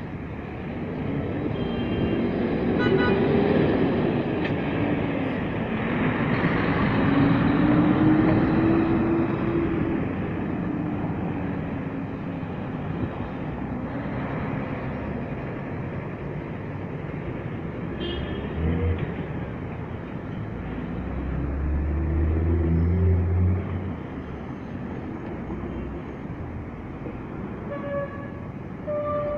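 City street traffic: buses and cars passing, their engines rising and falling in pitch as they pull away, with short horn toots about three seconds in and again near the end.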